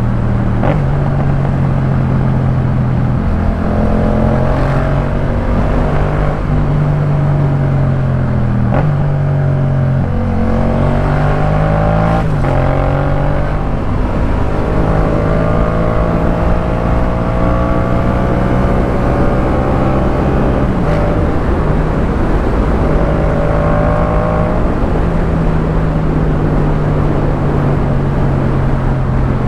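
Yamaha MT-07's 689 cc parallel-twin engine running through a Jeskap K4 full aftermarket exhaust while riding, its revs climbing and dropping several times, with a few sharp cracks.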